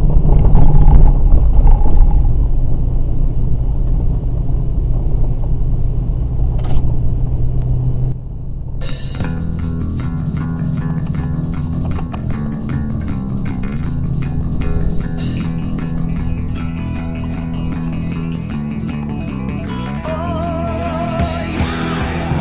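Engine and road noise heard from inside a vehicle's cab as it drives a dirt trail, a loud steady drone. About eight seconds in it gives way to rock music with guitar and a steady beat.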